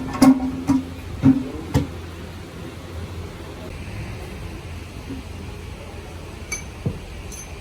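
Metal striking metal during gearbox work: four sharp strikes with a short ringing tone, about half a second apart, in the first two seconds. After them comes a steady low hum, with a few light clicks near the end.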